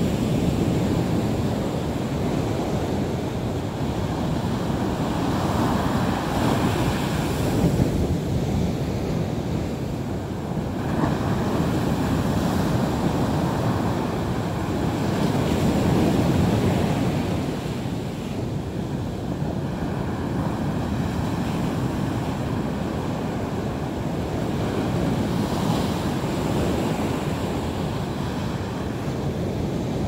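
Sea waves breaking on the shore, a continuous wash of surf that swells and eases in slow surges every few seconds.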